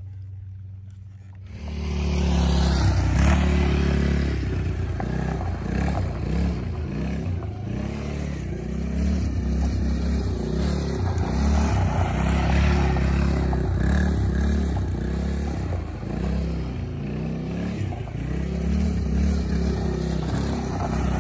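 Small youth quad ATV engine running close by, starting about a second and a half in, its pitch rising and falling as the throttle is worked.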